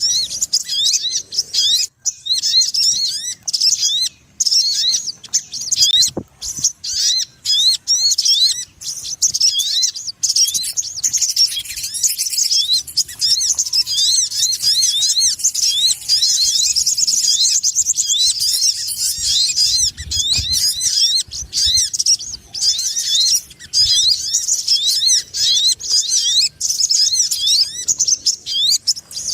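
Lure call of a sogon ontong (a sunbird): fast, noisy chattering made of short, high, sliding chirps repeating several times a second, running into a denser trill midway.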